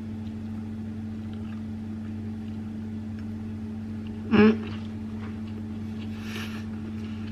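A steady low mechanical hum, like a household appliance running. A brief voice-like sound comes about four seconds in, and a short soft hiss follows about two seconds later.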